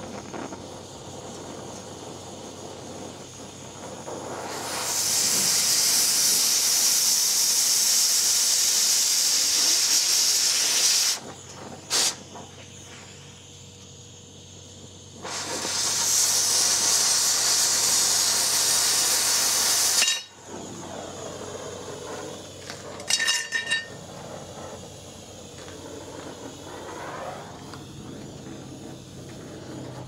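Oxy-fuel cutting torch cutting through a steel bed-frame rail: two long, loud hisses of about six and five seconds as the cutting oxygen blasts through the metal, with the torch flame's quieter steady rush between them. Brief sharp clicks come midway and again later.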